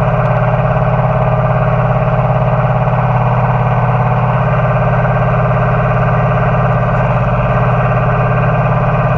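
Radio-controlled model tractor with a front loader driving at a steady speed, giving a loud, unchanging buzzing drone.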